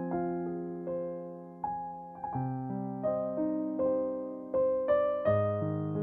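Slow, gentle piano music: single notes and soft chords struck one after another, each left to ring and fade.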